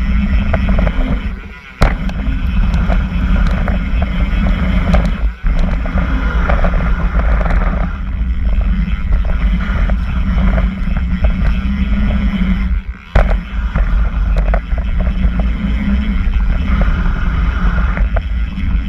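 Mountain bike riding fast down a dirt flow trail, heard from a seatpost-mounted GoPro: a steady rumble and rattle of tyres on packed dirt and gravel and the shaking bike. Twice the noise drops away briefly and ends in a sharp knock, about two seconds in and again near thirteen seconds.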